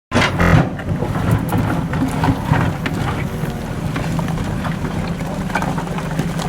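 Caterpillar 330D hydraulic excavator at work, its diesel engine running steadily, with irregular knocks and clanks throughout and a louder clatter about half a second in.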